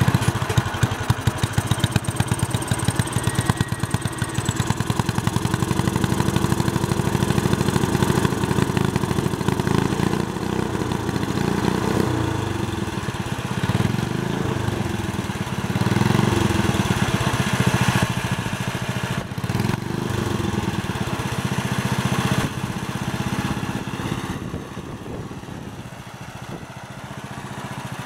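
Small engine of an old Sears garden tractor running just after starting, its speed rising and falling several times. Near the end it drops back for a few seconds, then picks up again.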